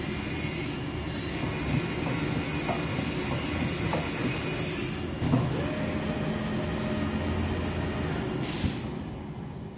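CNC oscillating-knife cloth cutting machine running: a steady mechanical noise with a few light clicks, its high hiss dropping away about halfway through.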